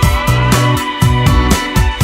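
Music with a steady beat, repeating bass notes and some sliding higher notes.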